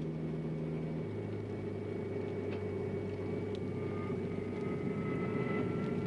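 An engine runs steadily, a low drone with a few held tones. Its lowest tone drops about a second in, and a faint thin whine slowly rises in pitch.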